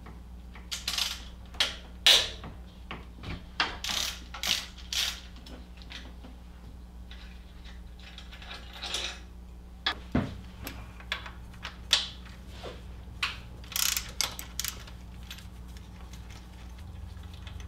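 Socket ratchet clicking in short runs as a 15 mm deep socket turns out an alternator mounting bolt, with pauses and a few sharper metal clanks in between.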